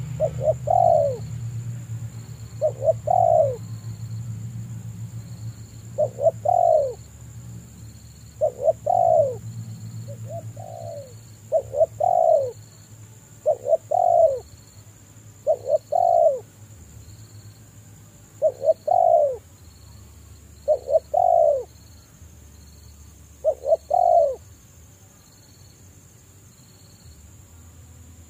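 Spotted dove cooing: a short call of a few descending notes, repeated about eleven times at intervals of two to three seconds.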